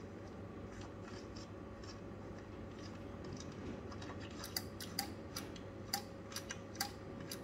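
Relay inside an Expert 1K-FA linear amplifier clicking on and off as a magnet is moved over its magnetic switch, switching a 60 m band modification in and out. There are faint ticks at first, then from about halfway a quick, irregular run of about ten sharp clicks.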